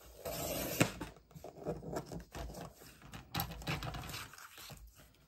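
A Fiskars paper trimmer cutting cardstock: a short sliding swish that ends in a click about a second in, then rustling and light knocks as the cut cardstock is handled.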